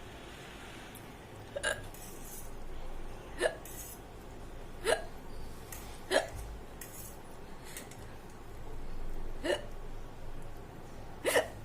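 A woman hiccupping six times, each hiccup short and sharp, one to three seconds apart with a longer pause in the middle. The hiccups are brought on by eating very spicy food.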